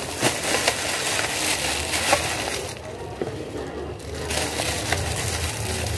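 Clear plastic bag wrapping crinkling and crackling as it is pulled and crumpled off a set of kitchen utensils. It goes quieter for about a second around three seconds in, then resumes.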